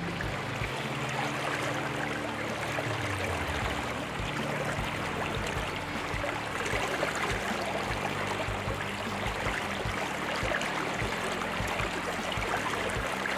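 River water rushing over a shallow rapid, a steady splashing rush close to the microphone, with a faint low hum underneath.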